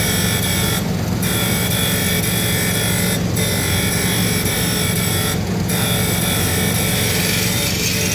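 Surface grinder running: a steady motor hum under a high grinding hiss that dips briefly about every two seconds.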